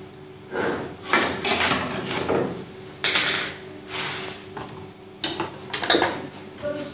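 Steel measuring tools, a combination square and ruler, set down and shifted on a wooden workbench: a series of short knocks and scrapes, with a sharper knock about six seconds in. A faint steady hum lies underneath.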